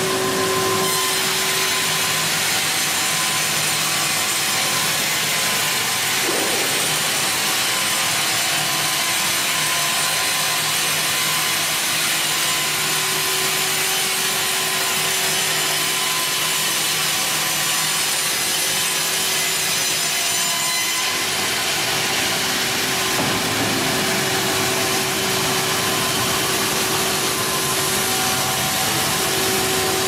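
Wravor WRC 1000 horizontal band sawmill cutting lengthwise through a log: the band blade makes a steady sawing noise in the wood over the hum of the machine's motors.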